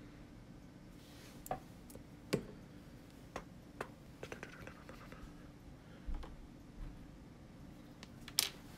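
Scattered light clicks and taps of paintbrushes and small objects being handled and set down on a desk cutting mat, irregular, with a sharper knock near the end, over a faint steady hum.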